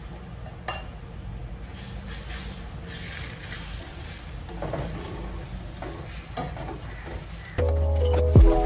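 Egg and leafy greens sizzling in a frying pan, with light scrapes and taps of a plastic spatula stirring them. Background music comes in near the end.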